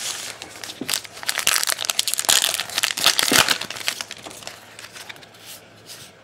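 Crinkling and tearing of an Allen & Ginter trading-card pack wrapper as it is opened by hand, densest for about two seconds near the start, then softer rustling as the cards are handled.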